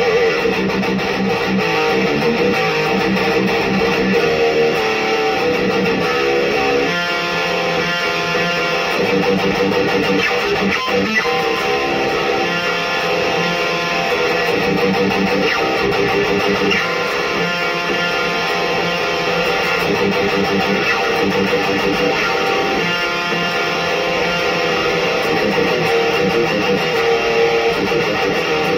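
Solar electric guitar played through a Black Cat Amps Djenttonic distortion pedal into an Electro-Harmonix 44 Magnum power amp: continuous distorted metal riffing, with the pattern of notes changing about a quarter of the way in.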